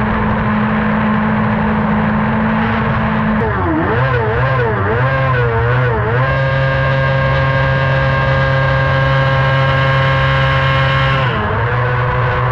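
Cross kart engine heard from the cockpit, running at a steady speed at first. About three and a half seconds in it is blipped up and down several times, then held at steady revs for about five seconds, and it drops back near the end.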